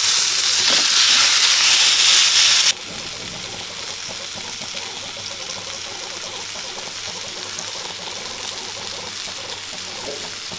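Masala-coated fish sizzling in oil on a grill pan as it is turned; a little under three seconds in, the loud sizzle drops abruptly to a quieter, steady frying hiss.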